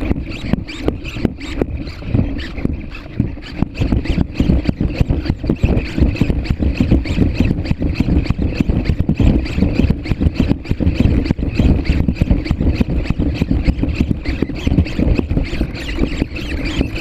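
PhantomX hexapod robot walking: its servos whine steadily while its legs and feet make dense, irregular clicks and taps.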